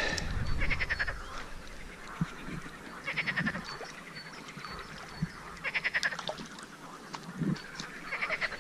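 Frogs croaking: about four bouts of rapid pulsed calls, each a little under a second long, a couple of seconds apart.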